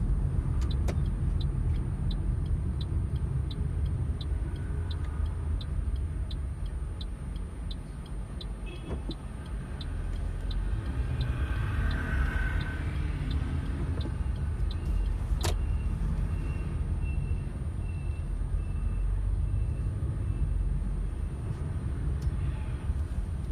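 Car interior road noise: a steady low rumble as the car drives in slow traffic. A regular ticking, about twice a second, runs through the first ten seconds, and there is one sharp click about fifteen seconds in.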